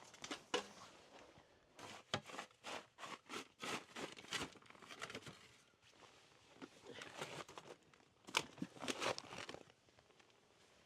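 Rustling and crunching handling sounds: a quick irregular run of crinkly strokes from about two to five seconds in, and another burst near the end.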